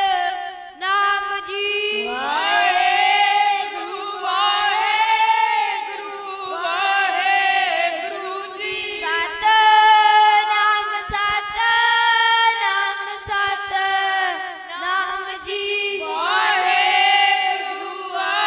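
Voices singing a slow devotional chant in long, drawn-out phrases over a steady held drone, with the pitch sweeping up into a new phrase about two seconds in and again near the end.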